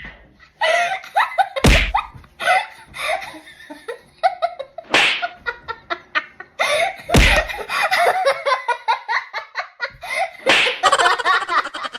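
A person laughing and giggling in fits, broken by two sudden loud bursts, one about two seconds in and one about seven seconds in. Near the end comes a fast, evenly repeating run of sound.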